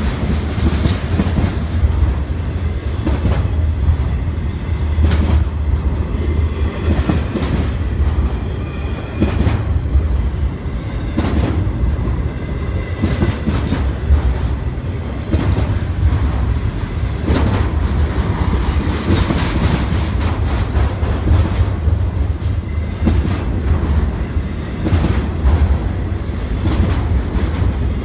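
BNSF intermodal freight train's cars rolling past: a continuous heavy low rumble with irregular clacks of wheels over the rail joints.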